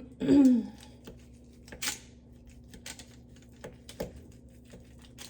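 Scattered light clicks and taps of a knife against a cutting board as a block of ground beef is cut in half, with a short scraping rustle about two seconds in.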